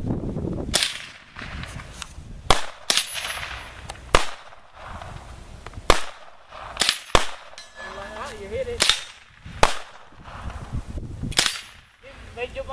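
Mexar .22 LR rifle by Mendoza firing a string of about ten sharp shots, irregularly spaced a second or two apart, at steel targets.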